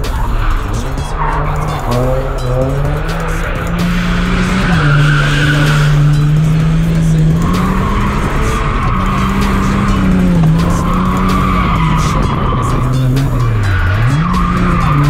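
A car drifting: the engine is held high in the revs, its pitch rising and dipping with the throttle, under long, near-continuous tyre squeal.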